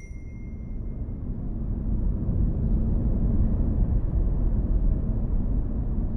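A deep rumble with no clear pitch that swells over the first two seconds and then holds steady.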